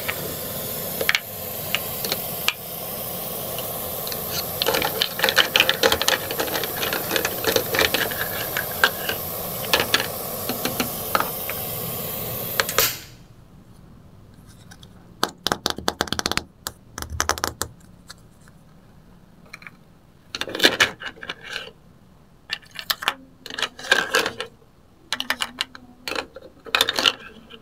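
Steady sizzling hiss with small crackles from a steaming toy cooking pot on a miniature stove, cutting off suddenly about halfway through. After that come light plastic clicks and clatters of a toy ladle scraping the pot and dishing pieces into a small plastic bowl.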